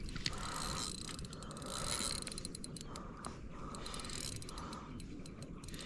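Fishing reel's drag clicking rapidly as line is pulled off by a hooked mulloway making a run.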